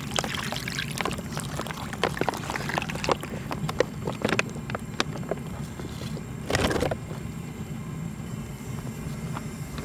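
Thick stew broth and meat pouring and splattering from a foil pouch into a wide cast-iron pot-lid pan, with crinkling of the foil and wet plops over the first few seconds. A longer rustle of the pouch about six and a half seconds in, over a steady low hum.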